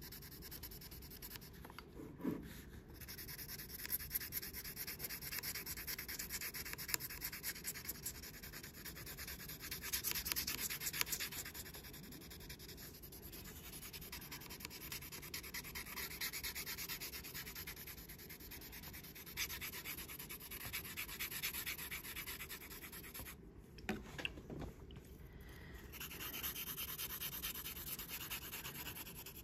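Graphite pencil held on its side, shading across paper in rapid back-and-forth strokes: a soft, continuous rubbing hiss, with a couple of short pauses as the pencil lifts.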